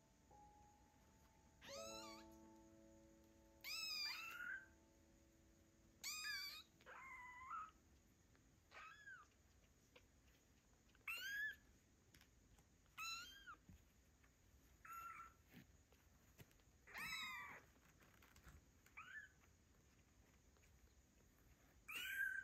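Two-week-old kittens meowing loudly over and over, about a dozen short high-pitched cries that rise and fall in pitch, a second or two apart. They are calling for their mother cat.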